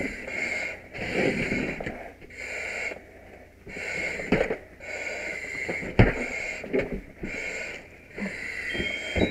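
Firefighter breathing hard through an SCBA mask, the air regulator hissing with each rapid breath, with a few sharp knocks of gear in between, the loudest about six seconds in.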